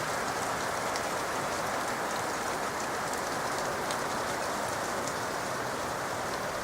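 Steady hiss of wet sleet falling, with faint scattered ticks of drops landing.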